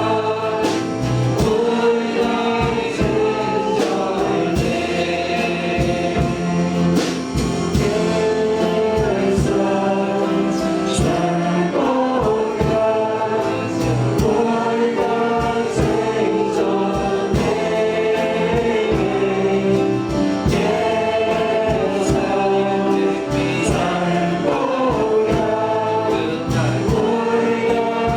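Congregational worship singing with a live band: many voices singing a Christian worship song over a steady beat.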